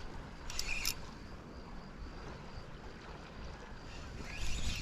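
Wind rumbling on the microphone out on open water, with two short splashy hisses, one about a second in and one near the end.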